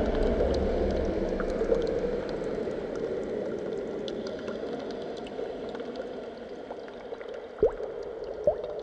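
Show soundtrack of bubbling, dripping liquid over a slowly fading low drone, with two short rising swoops near the end.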